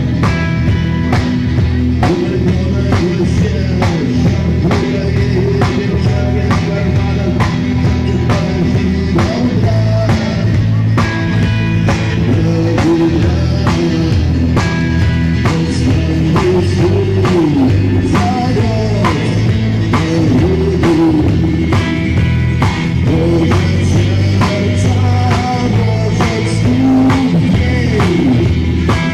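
Live rock band playing, with a steady drum beat under bass and electric guitar.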